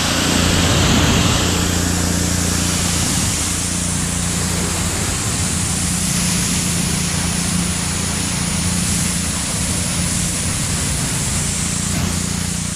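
Loud gas-engine pressure washer running steadily, with the hiss of its water jet spraying onto a truck's painted bodywork as it rinses off foam.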